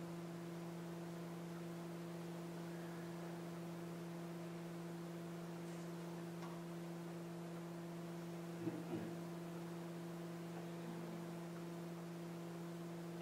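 Steady electrical hum at a constant level, with two soft low thumps in quick succession about nine seconds in.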